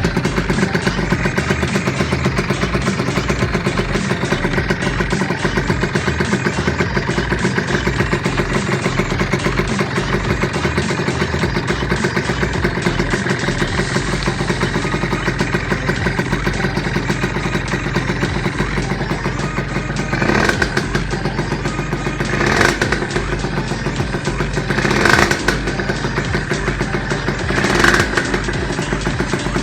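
Rieju MRT 50 Pro SM's two-stroke 50 cc engine, fitted with an 86 cc Top aluminium cylinder kit, idling steadily, then given four short throttle blips in the last ten seconds.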